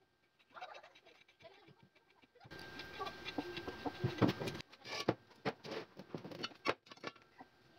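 Steel parts and square steel tubing knocking and clinking as they are handled and set down on a workbench. There is a busier stretch of noise a few seconds in, then a run of sharp clicks.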